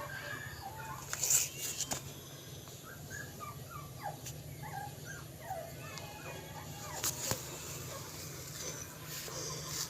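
Dogs whimpering in many short, gliding whines, with a couple of sharp knocks and a steady low hum underneath.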